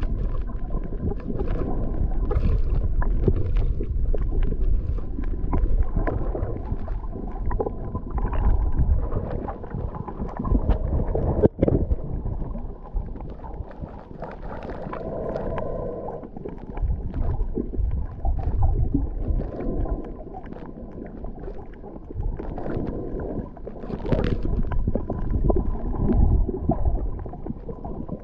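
Underwater sound picked up by a camera held beneath the surface while snorkeling: muffled, uneven rumbling and sloshing of water, with scattered small clicks and a thin steady hum. A sharp knock comes a little before halfway through.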